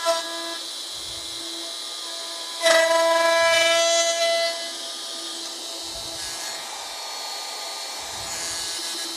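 DeWalt plunge router running at full speed with a steady high whine. About three seconds in it grows louder and coarser for a couple of seconds as the bit cuts into the wooden yarn bowl along the J-slot jig, then settles back to the even free-running whine.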